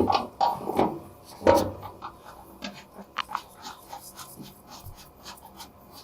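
Metal knocks as a mower blade is set onto its spindle, then a run of light quick clicks, about four or five a second, as its retaining bolt is done up.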